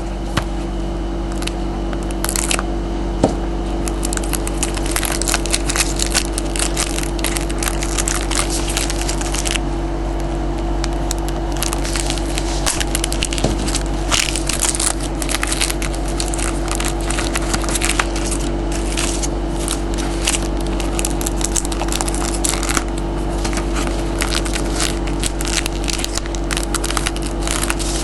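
Plastic wrapping on a box of trading cards being torn open and crumpled by hand, with irregular crackling throughout, over a steady low electrical hum.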